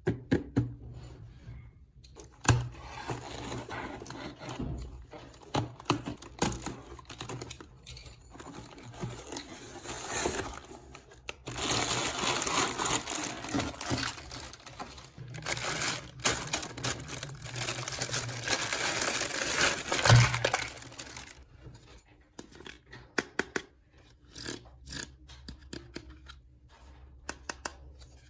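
Packaging being torn and crinkled in handling, with scattered small clicks and knocks. The crinkling is densest in the middle, then gives way to a few light taps near the end.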